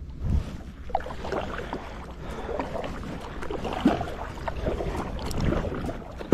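Kayak paddle strokes dipping and splashing in lake water, in irregular bursts of splashing and dripping.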